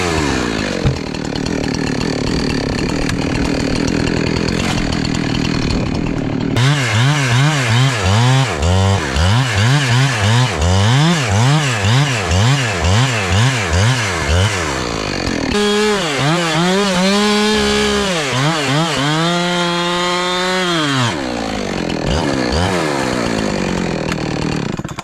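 Two-stroke chainsaw cutting wood. The engine pitch dips and recovers about twice a second as the saw works in the cut, then it runs at high revs, sagging now and then under load, and stops abruptly at the very end.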